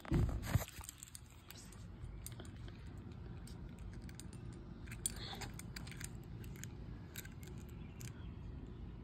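Keys and a key fob on a ring jingling in the hand, heard as light, scattered small clicks over a low steady rumble. There are a couple of louder handling bumps right at the start.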